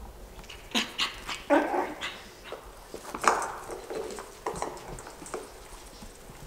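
Yorkshire terrier puppies yipping and barking while playing: a string of short, sharp calls, the loudest about one and a half and three seconds in.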